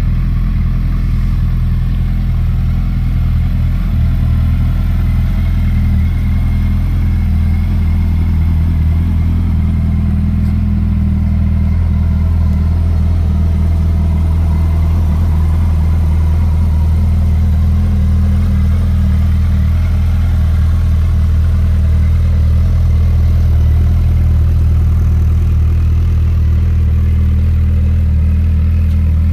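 Suzuki GSX1300R Hayabusa's inline-four engine idling steadily, with an even, unchanging tone.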